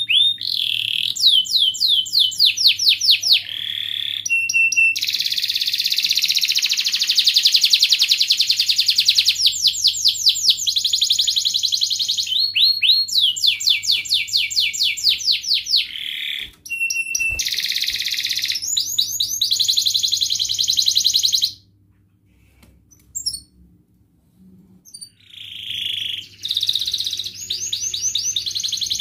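Domestic canary singing long, fast trills of rapidly repeated high notes, one phrase running into the next. It falls silent for about four seconds a little past two-thirds of the way through, then takes up its trilling again.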